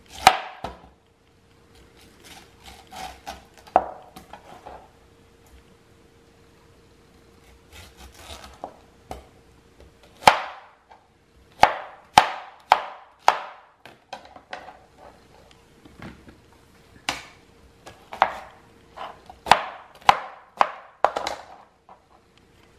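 Knife chopping pineapple into chunks on a cutting board: sharp, irregular knocks of the blade striking the board, some single and some in quick runs of several strokes.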